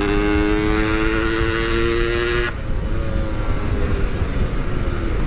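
Yamaha RX King two-stroke motorcycle engine pulling under throttle, its note climbing slowly in pitch. About two and a half seconds in the note drops away abruptly to a much quieter running sound.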